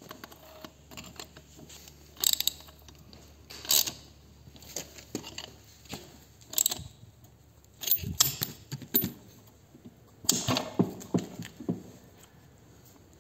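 Metal hand tools clinking and clicking against the casing of a BMW ZF five-speed gearbox, as a spanner and ratchet work a special tool in a shift-detent bore. The clinks come in short clusters every second or two, with the busiest ones in the second half.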